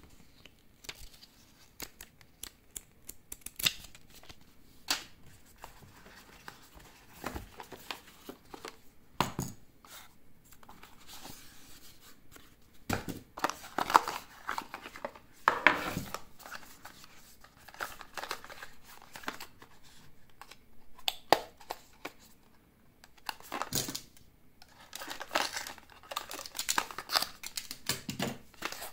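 Earbud packaging being opened and handled: irregular clicks, taps and short rustling, tearing sounds, loudest about halfway through and again near the end.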